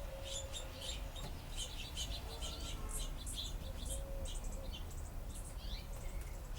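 Sparrows chirping: a rapid, busy run of short high chirps over a steady low background rumble.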